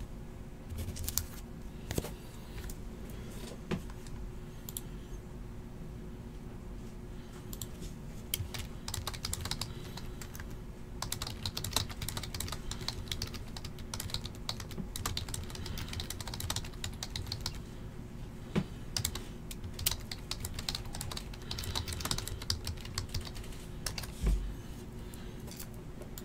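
Typing on a computer keyboard: irregular runs of keystroke clicks that come thicker after the first several seconds, over a faint steady hum.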